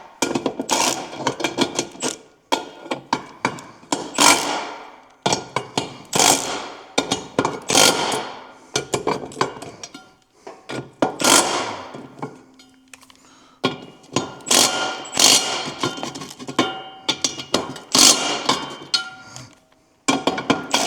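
Irregular metal knocks and clanks, some ringing briefly after the strike, coming in clusters every second or two, like metal parts being hammered or handled in a workshop.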